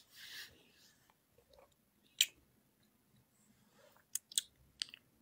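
Faint mouth sounds close to a phone's microphone: a short soft noise at the start, a single click about two seconds in, then a few quick clicks and smacks near the end.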